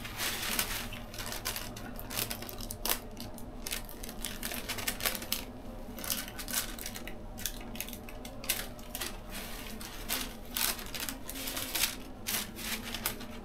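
Paper tattoo stencil and paper towel crinkling and rustling as gloved hands press and smooth them onto the skin of an upper arm, in many irregular sharp crackles.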